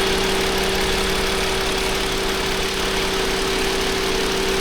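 2021 Toyota Avalon's 3.5-litre V6 idling with a steady hum, running rough and shaking hard from a misfire on cylinder 6, traced to a clogged fuel injector.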